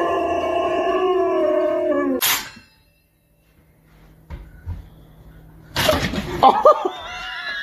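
A dog howling: one long held howl that sinks slightly in pitch and breaks off about two seconds in. After a short silence, a noisy burst near the end carries a few short high squeals that rise and fall.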